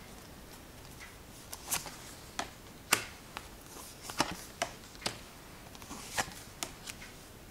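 Tarot cards being handled on a table: a scattered series of light clicks and taps, about a dozen spread irregularly over several seconds.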